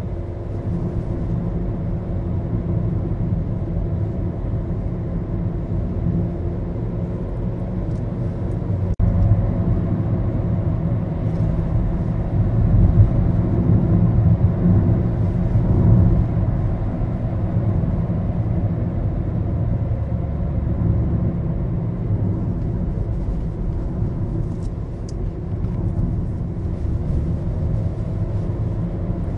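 Maruti Suzuki Baleno heard from inside the cabin while driving: a steady engine drone and road rumble.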